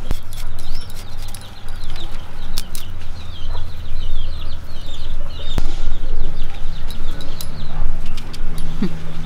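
Birds chirping over and over in short high calls, above a loud, low, steady rumble. A couple of sharp clicks stand out, one at the start and one a little past halfway.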